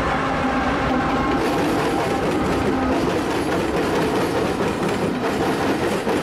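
A freight train's diesel locomotives passing close by, engines running with a steady drone over the rumble and clatter of steel wheels on the rails. The clicking of wheels over the track grows more prominent near the end as the first hopper cars roll past.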